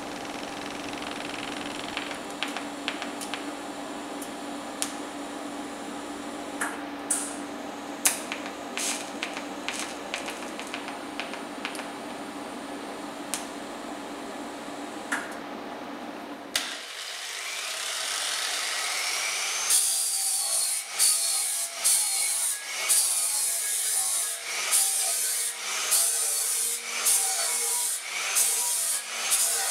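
TIG welding on steel sheet: a steady arc hum with scattered crackles and clicks. About halfway through it gives way to an angle grinder dressing the welds, its grinding rising and dipping in repeated passes about once a second.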